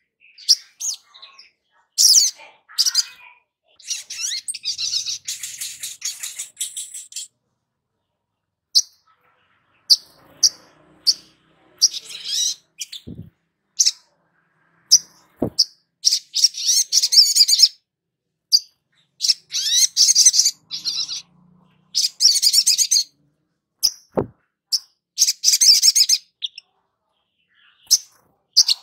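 Sogon (brown-throated sunbird) singing: short high-pitched chips between several rapid, chattering trilled phrases, each lasting one to three seconds. A few soft knocks come in between.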